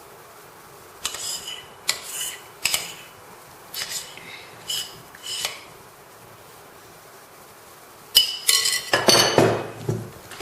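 A kitchen utensil scraping and clinking against a mixing bowl in about six short strokes, scraping out the last of the cake batter. Near the end comes a louder clatter of dishes.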